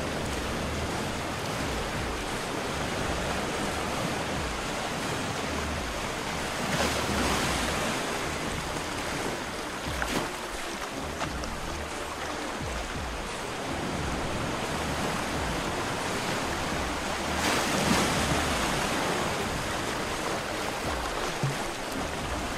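Small Baltic Sea waves washing in and sloshing among beach boulders and pebbles, a steady rush of surf that swells louder twice, about a third of the way in and again at about three quarters. Wind rumbles on the microphone underneath.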